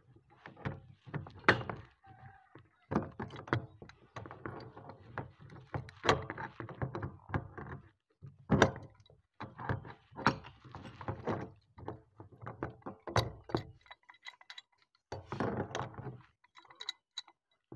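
Irregular knocks, clicks and scraping of a steel pipe wrench being worked around a threaded fitting on a plastic water tank as the fitting is tightened.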